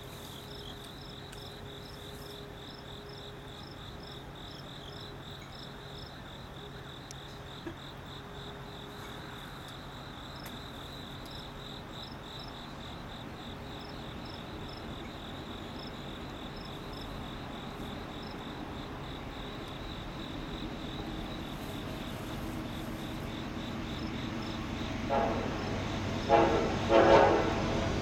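Norfolk Southern freight train led by GE diesel locomotives approaching, a low rumble that slowly grows louder under steady chirping insects. Near the end the lead locomotive's air horn sounds in a few short blasts, the start of a horn show.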